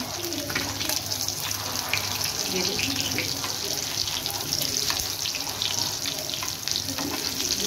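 Chicken shami kababs shallow-frying in hot oil over a medium flame: a steady sizzle dotted with crackling pops, with a spatula scraping in the pan as the kababs are turned over.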